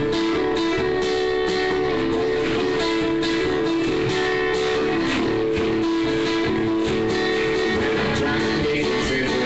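A guitar played live, chords strummed in a regular rhythm, heard through a phone's microphone.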